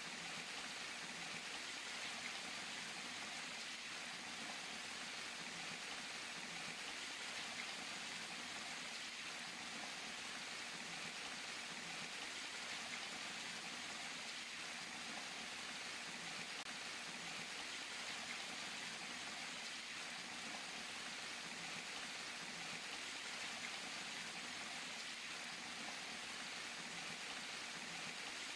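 Water falling and splashing down in a steady, even rush that does not change.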